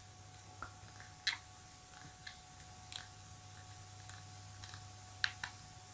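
Faint, irregular small clicks, about six spread across a few seconds, over a low steady electrical hum.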